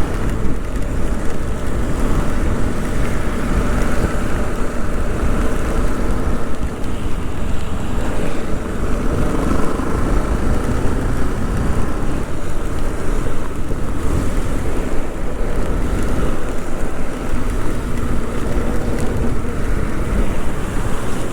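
Steady wind rushing over the microphone of a moving motorcycle, with the engine's drone underneath.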